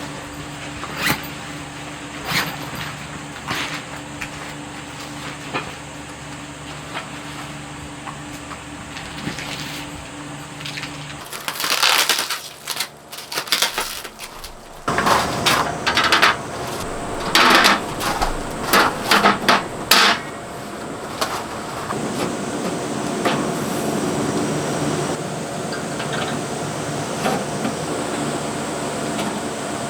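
Irregular knocks and clinks of hard objects being handled and struck, with a cluster of louder knocks about halfway through, over a steady background hiss.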